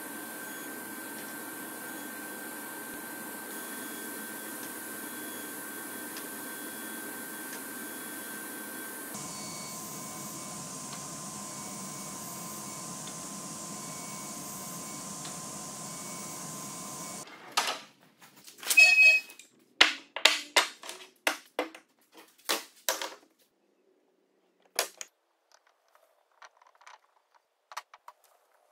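Table saw running steadily, a constant motor and blade noise with a high whine. It stops abruptly about two-thirds of the way through, followed by a series of sharp clicks and wooden knocks as the notched hardwood pieces are handled and glued.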